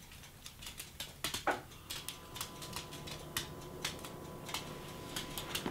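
A small dog's claws clicking irregularly on a hardwood floor as it hops about on its hind legs, with one short falling squeak about a second and a half in.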